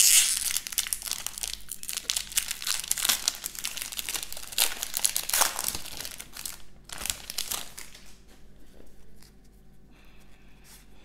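Foil wrapper of a Pokémon booster pack crinkling and tearing as it is ripped open and the cards are pulled out. The crackling dies down after about seven seconds.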